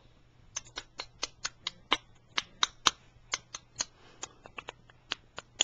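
A quick, irregular string of sharp clicks and taps, about twenty in five seconds, starting about half a second in.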